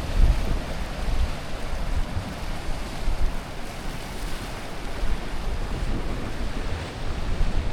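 Mediterranean sea waves washing steadily, with wind buffeting the microphone in a low rumble that eases in the middle and picks up again near the end.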